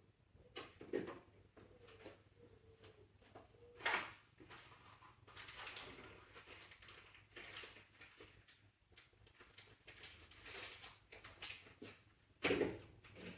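Intermittent knocks, clinks and rustling of hand tools and parts being handled during work on an engine, with sharper knocks about a second in, about four seconds in and near the end.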